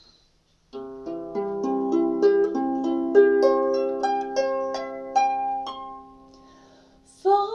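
Harp played solo, plucked notes rising and falling in a gentle broken-chord introduction, each note left to ring; the notes die away about six seconds in, and a woman's voice begins singing just at the end.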